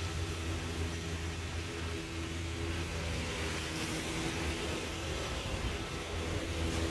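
Steady hum of road traffic from a nearby street, a continuous low rumble without distinct separate events.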